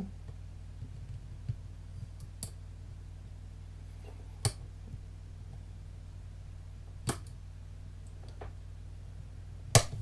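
Sparse, sharp metallic clicks from steel lever wires working inside an ERA two-lever padlock as the second lever is sought and lifted, five or so spread out with the loudest near the end, over a steady low hum.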